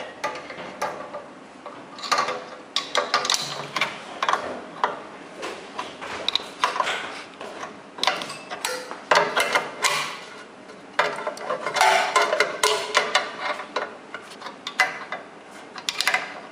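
Irregular clicking and clattering of a dumpling machine's metal parts, a quick run of short ticks and knocks.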